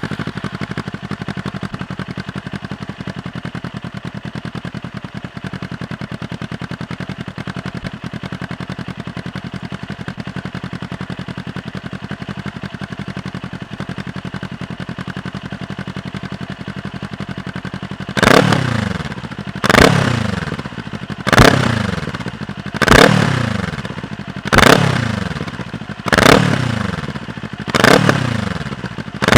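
A Kawasaki Eliminator's parallel-twin engine breathing through a Moriwaki Cross Twin Black slip-on exhaust. It idles steadily just after starting. From about two-thirds of the way in comes a run of seven short throttle blips, about one every second and a half, each rev rising sharply and falling back to idle.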